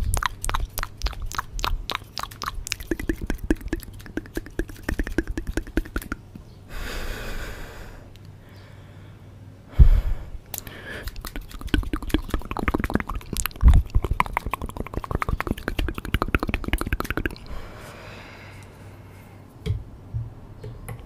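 Scissors snipping rapidly close to a microphone, in long runs of quick clicks. A short hiss comes about seven seconds in, and a single thump near ten seconds.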